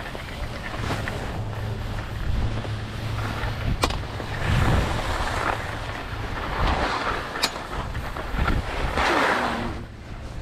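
Wind rumbling on the action camera's microphone, with rustling from a gloved hand and ski pole handled close to the camera and two sharp clicks.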